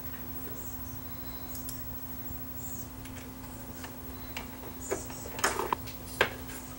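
A few light metallic clicks and clinks as a sheet-metal bracket and a screwdriver are handled against a CD changer's metal chassis, mostly in the second half, over a steady faint hum.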